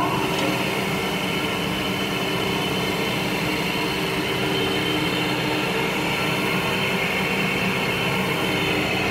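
Hockmeyer HM-1-8-99 immersion mill, driven by a 5 HP explosion-proof electric motor, running steadily at speed. It gives an even hum with a hiss above it.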